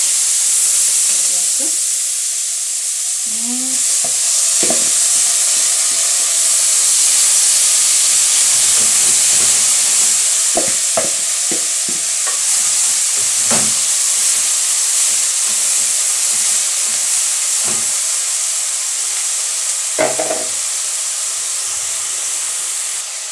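Chopped kale (sukuma wiki) sizzling loudly in hot oil with fried onions in a metal pot, a steady frying hiss. A wooden spoon stirring it knocks against the pot several times in the middle and once near the end.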